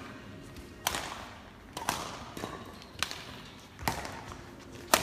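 Badminton rackets striking a shuttlecock in a doubles rally: five sharp smacks about a second apart, each followed by hall echo, the last near the end the loudest.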